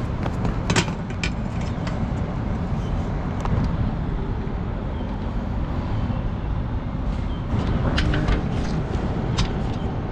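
Steady low outdoor rumble of city traffic on an action camera's microphone. Clicks and knocks of the camera being handled come about a second in and again around eight seconds in.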